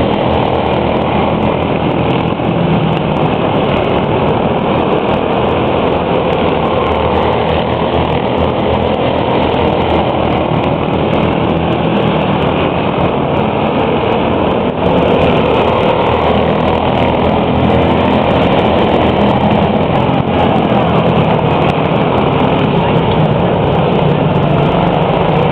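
Several quarter midget race cars' small single-cylinder engines running laps of a dirt oval as a continuous engine drone, which gets louder about fifteen seconds in.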